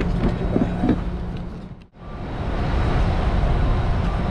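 Outboard motor idling: a steady low hum and rumble. It drops out abruptly to near silence about two seconds in and fades back up, where the footage is cut.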